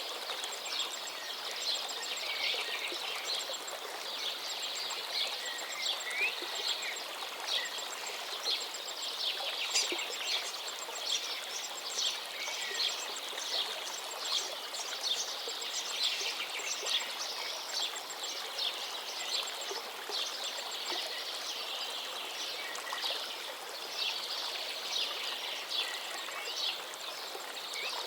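Many songbirds singing at once, a dense run of overlapping chirps and trills, over the steady rush of a flowing river.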